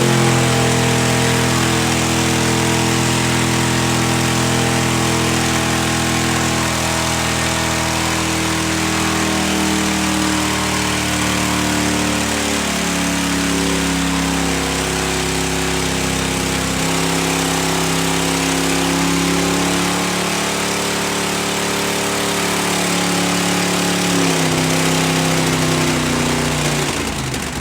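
Ram pickup truck's engine, running on whole milk and Cheerios in place of engine oil, runs steadily, its pitch sagging lower a few times, then cuts off abruptly near the end.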